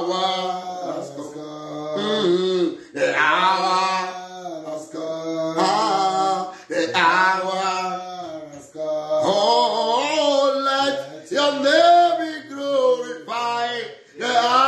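A man singing a worship song alone and unaccompanied, in long held notes that slide up and down, with short breaths between phrases.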